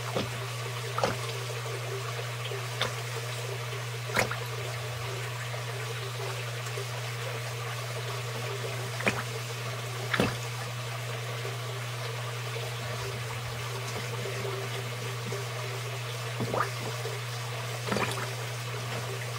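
Snapping turtle biting at and gulping a smelt in shallow water: short splashes every few seconds, about seven in all, over a steady low hum.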